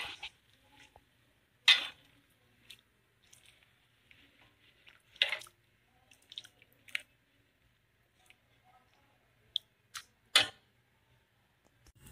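A pot of mutton stock with rice just added, bubbling on the boil: scattered wet pops and clicks, a second or more apart, over a faint steady low hum.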